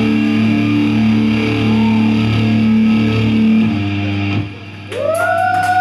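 Live rock band's electric guitars and bass ringing on sustained chords, cutting off about four and a half seconds in. The audience then cheers, with a rising, held whistle and scattered clapping near the end.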